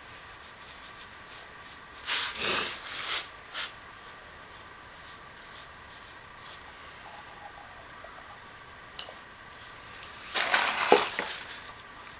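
Two short bursts of rubbing, scraping handling noise, about two seconds in and again near the end, with a few faint clicks between them over a steady faint hum.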